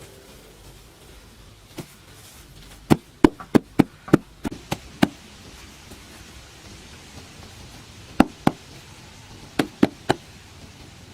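A run of sharp knocks, about ten within two seconds, then two more and later three more, over a faint steady background.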